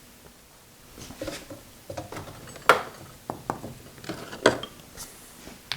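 Light metal-on-metal clinks and taps from hand tools and small lathe parts being worked loose during disassembly. The clinks come at irregular moments, starting about a second in, with two sharper knocks in the middle.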